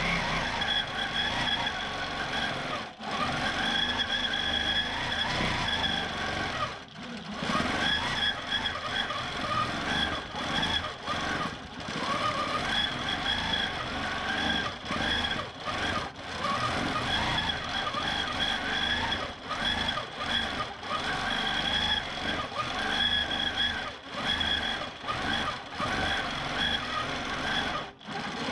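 Q'nique 19 longarm quilting machine stitching in stitch-regulated mode, its motor pitch rising and falling as it runs. It stops briefly about three and seven seconds in.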